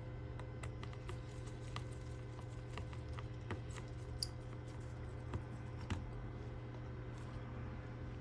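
Repair tools clicking and tapping lightly and irregularly against a Samsung Galaxy A20 smartphone during a screen replacement, over a steady low electrical hum. Two sharper clicks stand out, one near the middle and one about six seconds in.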